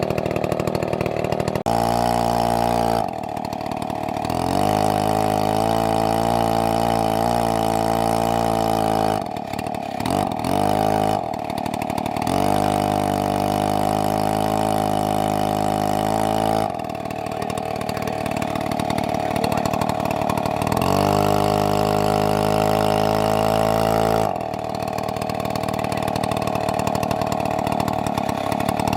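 Large two-stroke chainsaw running in repeated long stretches at high speed, each a few seconds long, dropping back to a lower, rougher idle in between, about four times.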